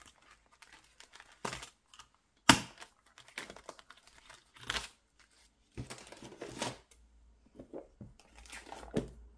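Glossy sheets rustling and crinkling as they are handled and lifted off the metal rings of a small ring binder, with several short sharp knocks, the loudest about two and a half seconds in.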